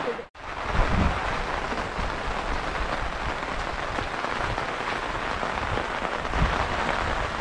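Steady rain coming down hard, an even hiss of drops. It starts just after a moment's silence.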